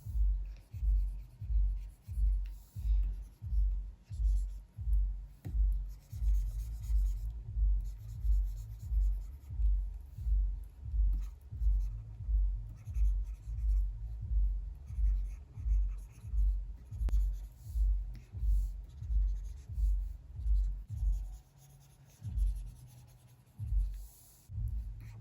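Pen stylus strokes on a Wacom Cintiq 24 Pro pen display, a soft rubbing drawn back and forth about one and a half to two times a second. The strokes stop about four seconds before the end, then a few more come.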